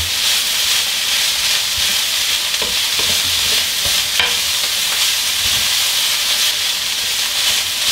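Rice and chard frying in a hot wok with a steady sizzle, while a wooden spatula stirs and scrapes through it, with occasional light knocks of the spatula against the pan.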